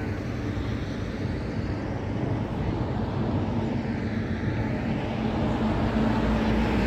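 Motorbike on the move: wind rushing over the phone's microphone over the engine's steady low hum.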